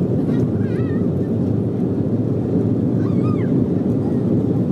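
Steady low rumble of an Embraer 190 jet heard from inside its cabin as it rolls along the runway, its GE CF34 turbofan engines running. Faint wavering voice-like sounds come in briefly about half a second in and again about three seconds in.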